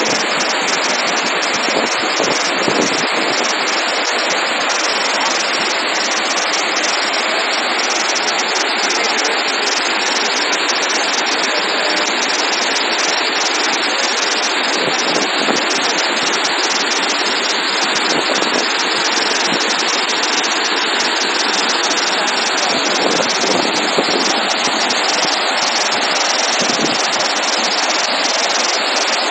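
Floodwater pouring through the open gates and down the chutes of a dam spillway: a loud, steady rush of water that does not change.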